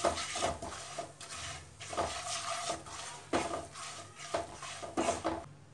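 Wooden spatula stirring and scraping a thick spice-and-gram-flour masala around a non-stick kadhai, in repeated uneven strokes.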